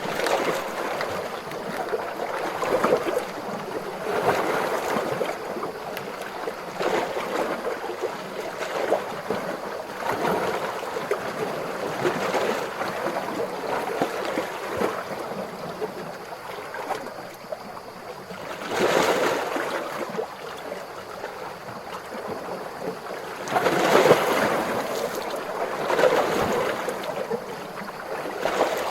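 Calm ocean waves washing ashore: a steady wash of surf that swells and ebbs every couple of seconds, with a few louder waves breaking in the last third.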